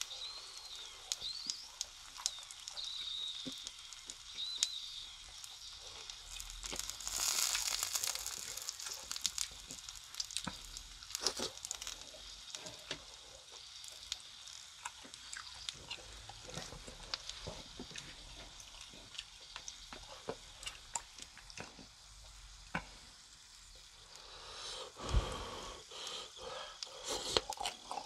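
Close-miked wet chewing of grilled chicken skewers (yakitori), with many small sharp mouth clicks. A denser noisy stretch comes about seven seconds in, and a single low thump about 25 seconds in.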